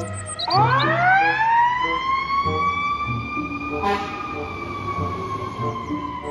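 Fire truck siren winding up: it rises steeply in pitch over about two seconds, then holds a high, steady wail that sinks slightly near the end. A short sharp noise cuts through about four seconds in.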